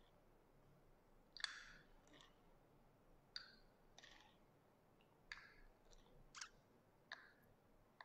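Faint clinks of a long metal bar spoon against a tall drinking glass while a drink is stirred: a string of light, sharp ticks, roughly one a second.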